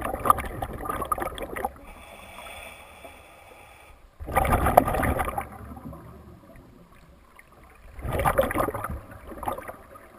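A scuba diver breathing underwater through a regulator: three bursts of exhaled bubbles about four seconds apart, with a fainter hiss between them.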